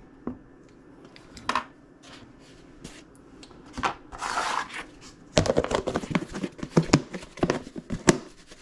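Clear plastic food-storage tub with breaded fish fillets in it being handled: a few knocks, then a short rustle of breading sliding as the tub is tilted about four seconds in. From about five and a half seconds, a dense run of clicks and knocks as the red snap-on lid is pressed down around the rim.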